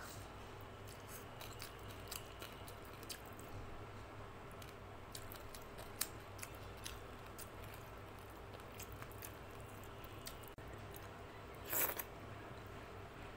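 Close-miked eating sounds: soft chewing and small wet mouth clicks as rice mixed with dal is eaten by hand, over a faint steady hum. A short, louder noise near the end.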